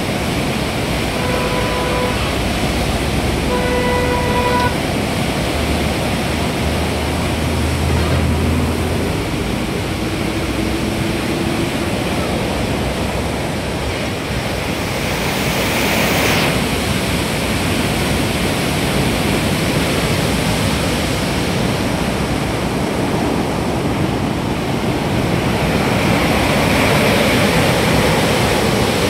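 Floodwater of the Kosi River rushing through the open barrage gates, a loud, steady rush of water. Two short vehicle horn honks come about one and four seconds in, and a vehicle passes about halfway through.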